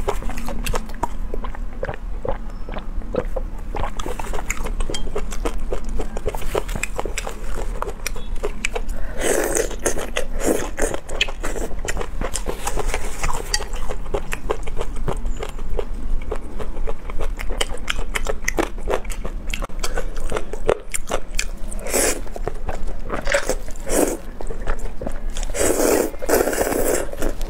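Close-miked eating of curly instant noodles: steady wet chewing and small mouth clicks, with several louder slurps of noodles, the loudest near the end.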